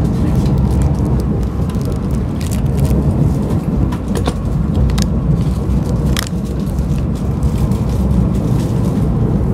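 Steady low rumble of an ETS electric train running, heard from inside the passenger carriage, with a few sharp clicks scattered through it.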